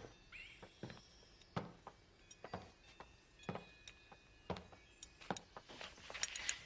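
A series of soft knocks, about one a second, and a few faint high chirps in the middle.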